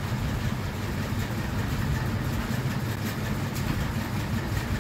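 Steady low rumble of a passenger train running, heard from inside the coach, with a few faint clicks about three seconds in.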